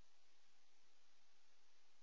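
Near silence: only a steady, faint hiss of room tone.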